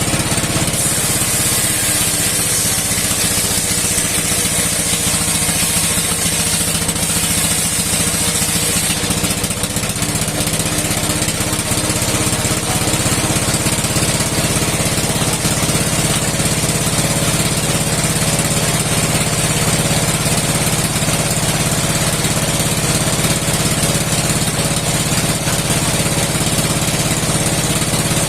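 An old engine, about 60 years old, running steadily as it drives a steel wood-cutting saw. It keeps an even, unchanging beat throughout.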